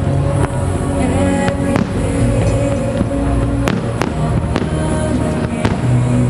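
Aerial firework shells bursting in several sharp bangs at uneven intervals, over music playing along with the display.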